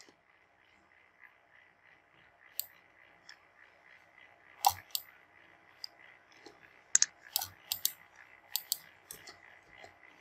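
Computer mouse clicking: a few scattered clicks, then a quicker run of about a dozen in the last three seconds, over a faint steady background hiss.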